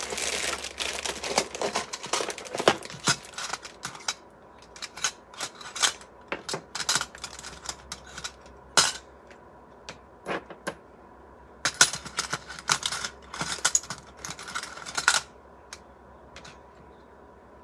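Small metal cake-decorating piping tips clicking and clinking against one another and the cutting mat as they are picked out by hand, with rustling and clatter from digging in a plastic storage bin during the first few seconds. The clinking comes in irregular clusters and stops about two seconds before the end.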